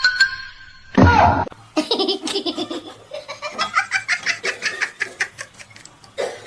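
A person laughing in quick repeated high-pitched bursts, about three to four a second, like a small child's giggle, after a short loud cry falling in pitch about a second in.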